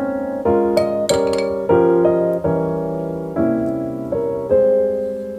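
Background piano music: a slow melody of sustained notes.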